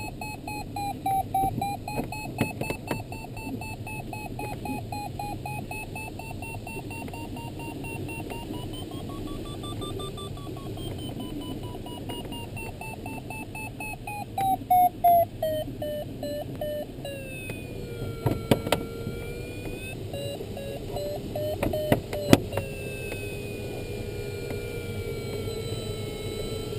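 An LS6 glider's electronic variometer beeps rapidly, its pitch rising and falling with the climb rate as it signals lift. About two-thirds of the way through, the beeping stops and the pitch drops into a steady low tone, signalling sink. Under it is the steady hiss of air over the canopy, with a few sharp knocks.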